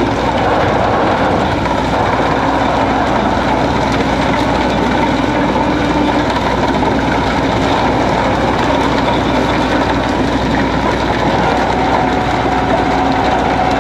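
Deck machinery of a tuna purse-seine boat running steadily and loudly while the net is hauled aboard: engine and net-hauling gear, with a faint steady whine coming up near the end.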